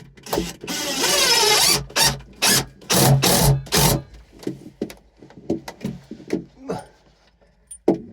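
Cordless drill driving screws: about a second of the motor running with its pitch wavering under the trigger, then four or five short bursts, followed by scattered knocks and handling clatter.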